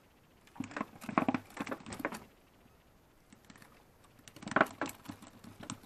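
Quick rattling clicks and knocks from handling the catch and longline in a small fishing boat, in two bursts of about a second and a half, the second near the end with the loudest knock.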